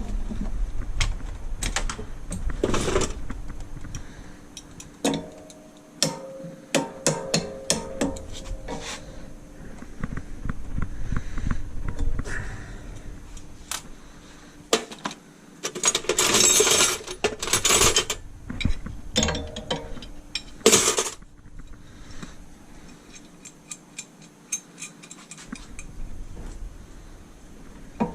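Hand tools and metal parts being worked on: scattered clinks, clicks and rattles, with a louder stretch of rattling and scraping a little past halfway and a sharp clank soon after.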